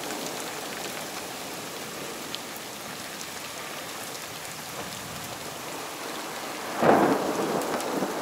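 Heavy rain falling steadily, then a sudden loud clap of thunder near the end that rumbles on.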